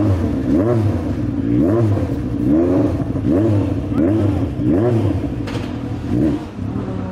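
Mitjet 1300 race car engine revved in repeated throttle blips while the car stands still, its pitch rising and falling about once a second.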